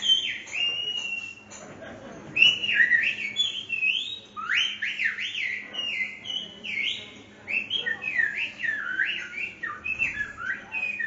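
A person whistling in Silbo Gomero, the whistled language of La Gomera: loud whistled phrases made of quick rising and falling pitch glides, with a short pause about two seconds in.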